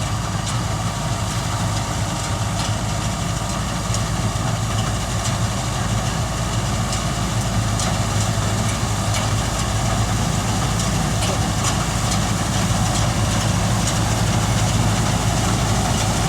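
Balkar B-525 tractor-mounted combine harvester running steadily, a continuous engine and machinery drone with light irregular ticks above it.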